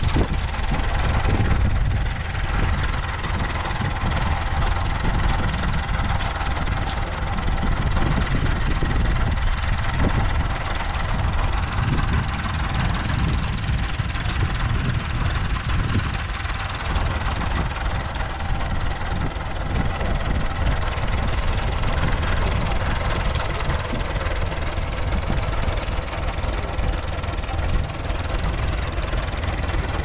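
Engine of farm machinery running steadily, with its strongest sound at the low end.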